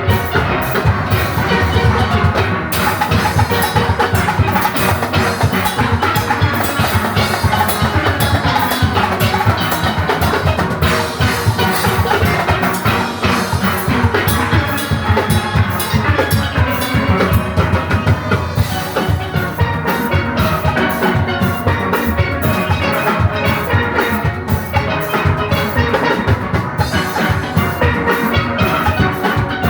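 Steel orchestra playing live: many steelpans sounding fast, dense melodic and chord patterns over a steady drum-kit and percussion rhythm.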